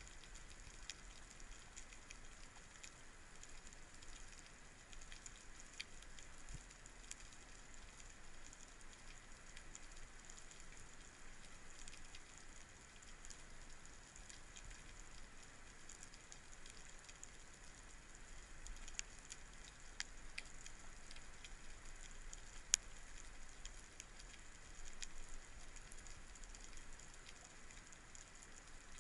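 Faint underwater ambience picked up by a submerged camera: a steady high hiss with scattered tiny clicks and crackles, and one sharper click late on.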